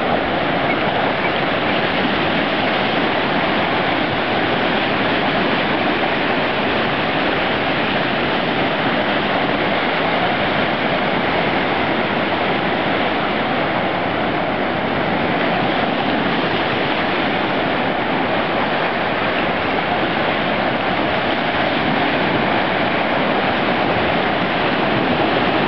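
Sea surf breaking and washing in: a steady, unbroken rush of foaming water.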